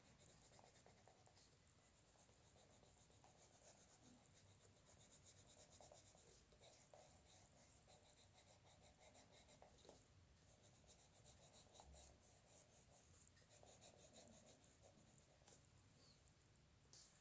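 Faint scratching of a drawing tool making many quick, short strokes.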